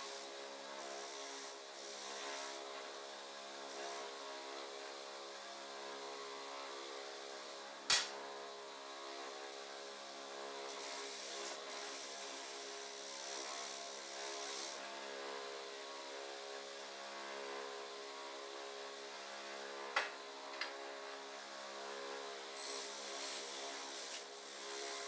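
Bench grinder running with a wire wheel, humming steadily while small metal vise parts are held to it; the wire scrubs against the metal in spells, adding a hissing rasp. Two sharp clicks, one about eight seconds in and another about twenty seconds in.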